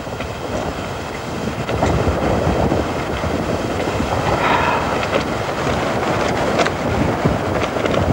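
Desert wind buffeting the camera microphone, a loud, continuous rumbling rush with a brief stronger gust about four and a half seconds in.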